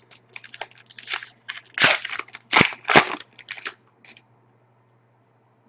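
Hockey card pack wrapper being torn open and crinkled, a run of irregular sharp crackles that stops about four seconds in.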